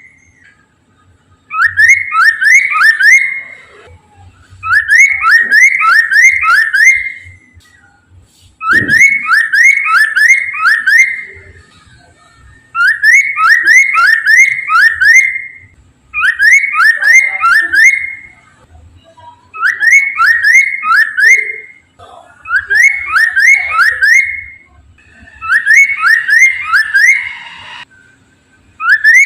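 Poksay mandarin, a laughingthrush, singing loud whistled phrases, each a quick run of four or five rising notes, repeated about every two and a half seconds.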